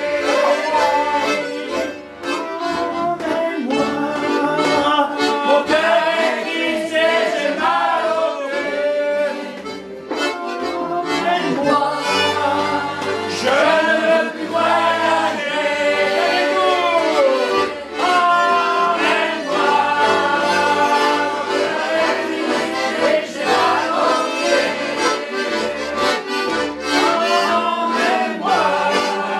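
Accordion playing a song, with a voice singing along to it.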